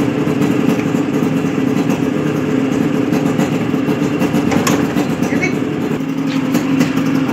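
Yamaha RX-King two-stroke single-cylinder motorcycle engine running at a steady speed.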